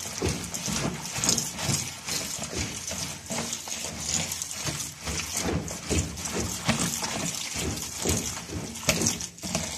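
Kitchen tap running into a plastic colander while hands rub and squeeze chopped turnip greens, onion and coriander to wash out sand: a steady stream with irregular splashing and squelching.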